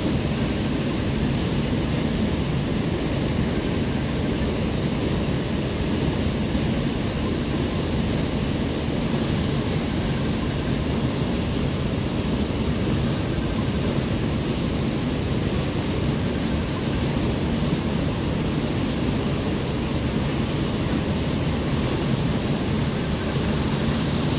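Freight train's loaded open wagons rolling past on the rails: a steady, unbroken rumble with no breaks or clanks standing out.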